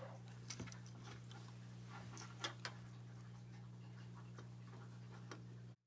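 Faint scattered clicks and taps of fingers handling a small red JST power connector and its wires, over a steady low hum that cuts off suddenly near the end.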